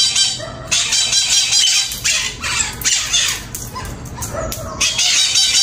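A flock of green parakeets squawking and chattering in a dense, shrill din as they feed on guava held out by hand. The calls thin out midway and come back strongly near the end.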